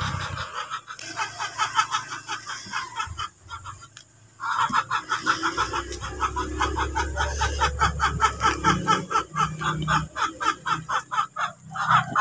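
Chickens clucking in a quick, continuing series, with a brief pause about three to four seconds in.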